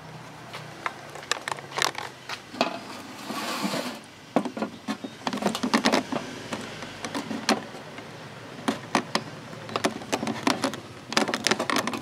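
Irregular clicks and knocks from hands handling a plastic handlebar clamp mount and the camera, with a brief rustle about three seconds in.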